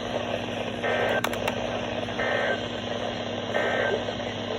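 Emergency Alert System end-of-message data bursts: three short warbling digital squawks about a second apart, over the steady hiss and hum of a weather radio receiver.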